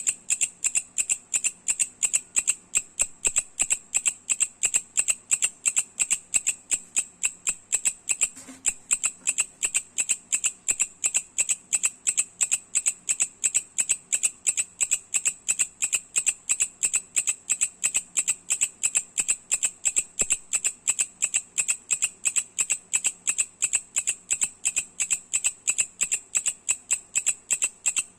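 A Mecopoda katydid (bush cricket) calling: a loud, even train of sharp, high chirps at about four a second, with a brief hitch in the rhythm about eight seconds in.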